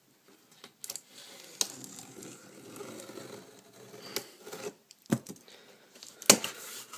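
Scissors cutting along the edge of a cardboard box: a scraping sound with small clicks of the blades, then a couple of sharp knocks from handling the box near the end.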